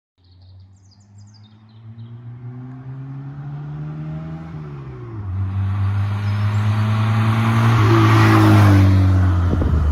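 A car's engine running, the 1995 MGF's Rover K-series four-cylinder. It gets steadily louder, its pitch creeping up and then dropping back about halfway through.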